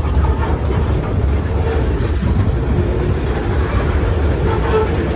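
Boxcars of a CSX mixed freight train rolling past: a steady, loud rumble of steel wheels on the rails.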